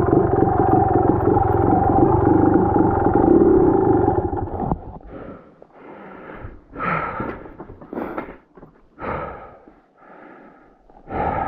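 Dirt bike engine running steadily, then cutting off about four and a half seconds in; short bursts of a person's voice follow.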